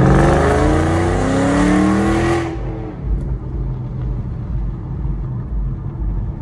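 Mustang GT V8 exhaust through long-tube headers accelerating, its pitch rising steadily, then dropping off abruptly about two and a half seconds in to a low rumble.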